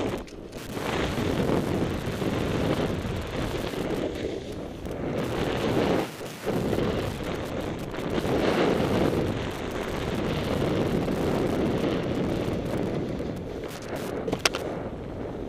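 Wind rushing over a helmet-mounted camera's microphone, mixed with the snowboard's base and edges scraping over packed snow, swelling and fading through the turns. A sharp click near the end.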